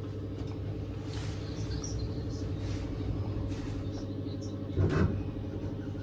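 A steady low hum from a running machine, with one brief knock about five seconds in.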